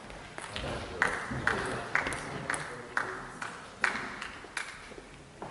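Table tennis ball bouncing repeatedly, about two sharp pings a second, each with a short ring; the loudest comes about two thirds of the way through.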